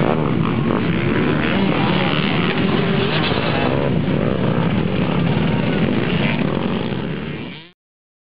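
Several motocross bikes ride past close by, their engines revving up and down over one another. The sound fades out shortly before the end, leaving silence.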